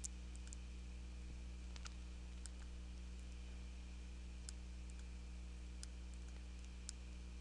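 Computer mouse clicking now and then, about six sharp clicks spread unevenly, over a steady low electrical hum.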